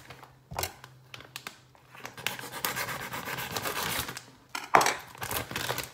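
Plastic bag of grated mozzarella being pulled open and handled, crinkling and rustling. There are a few light clicks at first, then a long stretch of crinkling, and one sharp, louder rustle near the end.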